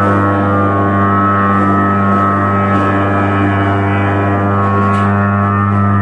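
11.5 MVA submerged arc furnace running nearly empty, its electrode arcs giving a loud, steady electrical hum with many overtones and a rough crackling edge.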